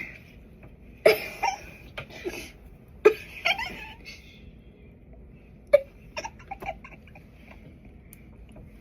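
Two girls giggling in several short bursts a few seconds apart.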